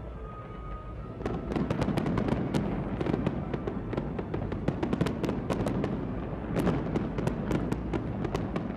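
Fireworks going off in a dense barrage of sharp bangs and crackles, starting about a second in and getting louder.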